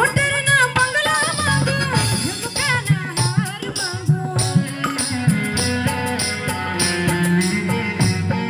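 Indian folk song music: a wavering, ornamented lead melody over a drum and jingling hand percussion, with no sung words.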